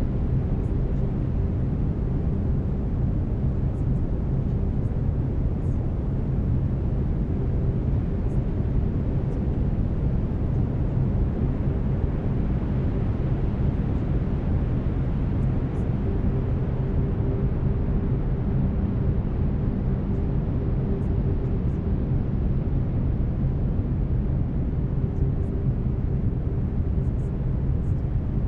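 Steady brown noise, a deep even hiss heaviest in the low end, with low steady binaural-beat tones held beneath it.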